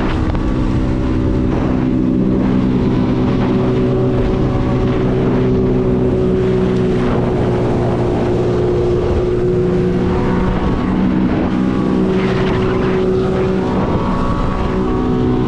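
Personal watercraft (jet ski) engine running steadily at an even, unchanging pitch, with water rushing along the hull.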